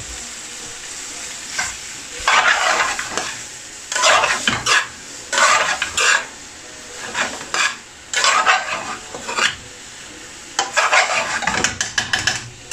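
A metal spoon stirring chicken curry in an aluminium frying pan, scraping and clattering in repeated bursts. Under the stirring, the frying curry sizzles steadily.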